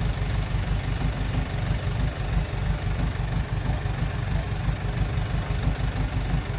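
Heavy diesel engine idling steadily with a low, even pitch.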